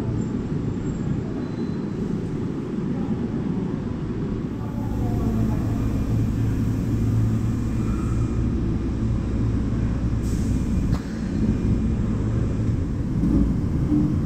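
Osaka Metro subway train at a station platform, running with a constant low rumble; a steady low hum comes in about five seconds in and stops a second or two before the end. A short hiss of air and a click come around two-thirds of the way through.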